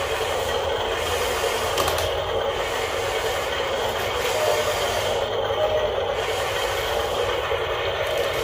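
Radio-controlled Huina toy excavator working its boom and bucket: a steady mechanical whirring of its small electric motors and gears.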